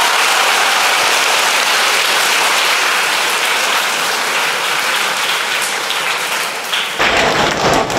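Audience applauding, a dense, even clapping that thins out near the end.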